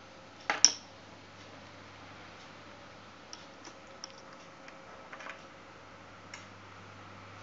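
Two sharp clicks about half a second in, then scattered lighter clicks and taps of small hard objects being handled, over a faint steady hum.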